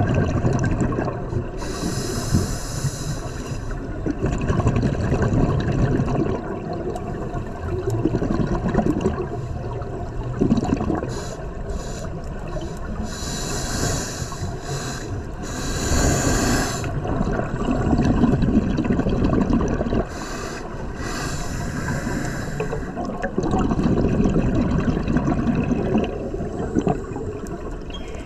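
Scuba diver breathing through a regulator underwater: slow breaths, each a short hissing inhalation followed by a long, low bubbling exhalation.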